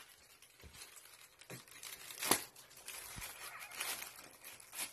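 The thin plastic film of an inflated air-cushion packing pillow crinkles and crackles softly as it is handled and put to the mouth. There is one sharper crack about two seconds in.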